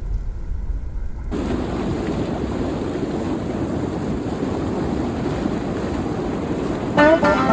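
Steady rush of water from river rapids, starting abruptly about a second in. Music comes in near the end.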